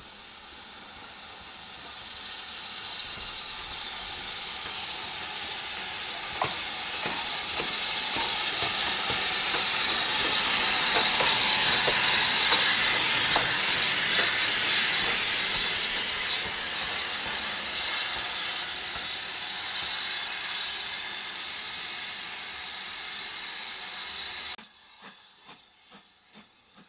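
BR Standard Class 4MT 2-6-4 tank locomotive passing close by with loud steam hissing, and a few sharp clicks from its wheels on the rails. The hiss builds as the engine approaches, is loudest as it goes past and eases as it moves away, then cuts off suddenly near the end.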